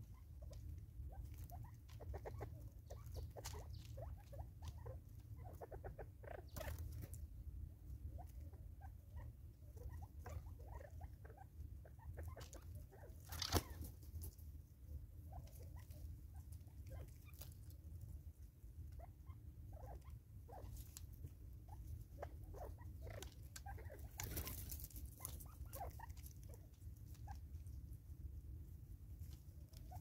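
Spurfowl pecking seed from a plastic feeder and stepping and scratching in dry leaf litter: a scatter of small irregular taps and rustles. There is one sharper tap about halfway through and a longer rustle a few seconds after it.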